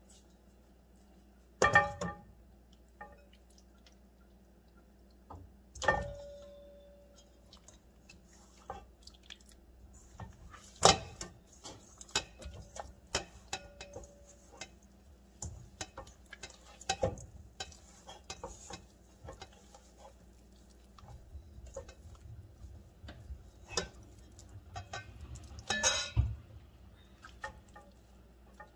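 Metal utensils clinking, knocking and scraping against ceramic and stainless steel mixing bowls, an irregular run of clinks with a few louder knocks, some ringing briefly.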